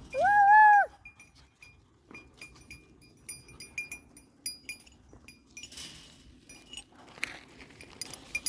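A goat bleats once, loudly, at the very start, followed by the light, irregular clinking of small livestock bells.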